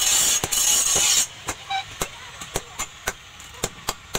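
Hand hammer striking a red-hot steel knife blade on an anvil block, a steady rhythm of about four blows a second. A loud rushing noise runs under the first blows and cuts off suddenly about a second in.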